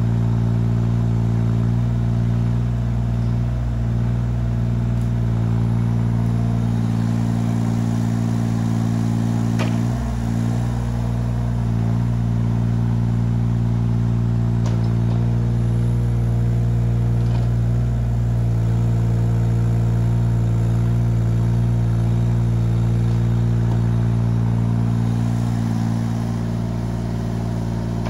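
Yanmar Vio17 mini excavator's three-cylinder diesel engine running steadily, with a single sharp knock about ten seconds in.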